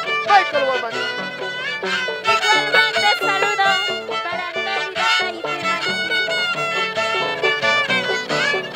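Instrumental passage of Andean folk music from Huancavelica: a violin plays the sliding melody over a harp accompaniment.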